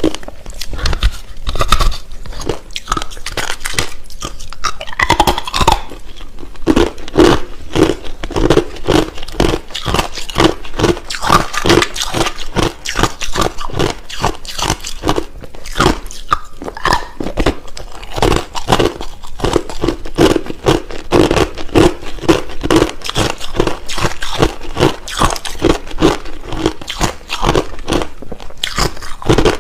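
A person chewing hard, clear crushed ice close to the microphone: a continuous run of sharp, rapid crunches.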